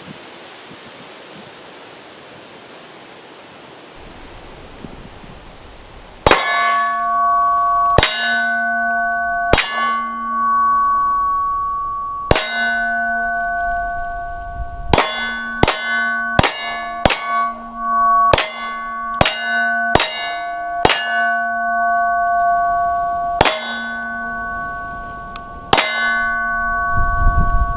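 A string of about seventeen pistol shots, each hit ringing a steel target plate with a sustained metallic tone that carries on between shots. The shots start about six seconds in, spaced well apart at first, then quicker in the middle.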